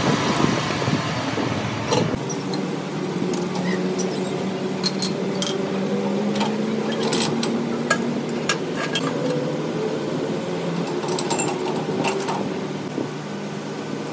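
Metal lathe running with its chuck spinning, its low rumble dropping out about two seconds in as the spindle stops, while a steady machine hum carries on. Sharp metallic clicks and clinks follow as the workpiece and the jaws of the four-jaw chuck are handled and adjusted.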